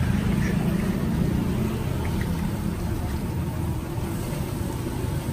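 Steady low rumble with a faint sizzle of battered bananas deep-frying in a wok of hot oil.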